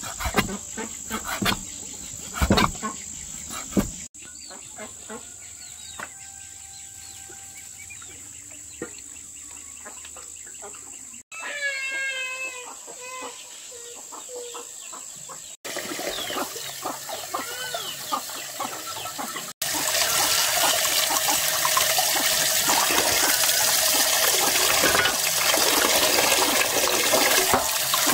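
A run of short clips: a few sharp knocks at the start, chickens clucking in the middle, and a steady loud hiss of running water over the last eight seconds.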